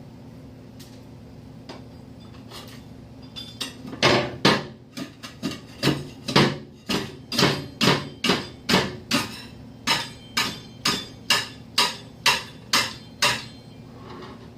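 A spatula repeatedly striking hardened, burnt-on melted candy to chip it loose. It makes a run of sharp knocks, about two to three a second, that starts a few seconds in and stops shortly before the end.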